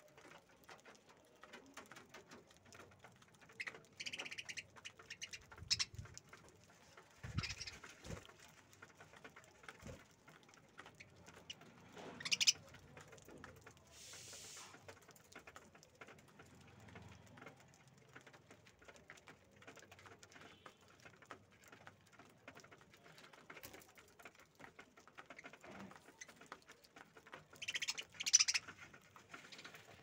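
Budgerigars giving scattered short chirps and chatter, with a louder burst of calls a couple of seconds before the end.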